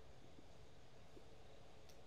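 Near silence: a faint steady background hiss, with one faint click near the end.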